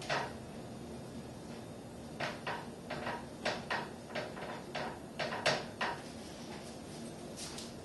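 Cookware being handled at the stove: a run of about a dozen short clicks and knocks, from about two seconds in to about six seconds in, over a faint steady background.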